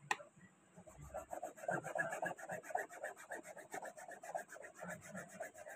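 Toothbrush bristles scrubbing a stain-remover-treated cotton cloth laid over a plastic tray, in quick, even back-and-forth strokes, several a second. The scrubbing starts about a second in.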